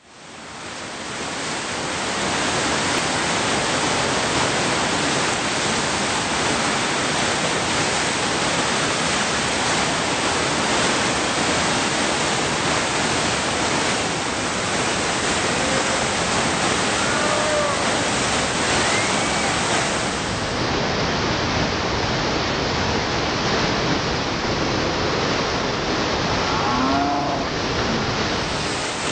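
Whitewater rapid at high flow, about 5,000 cubic feet per second: a loud, steady rush of crashing water that fades in over the first couple of seconds.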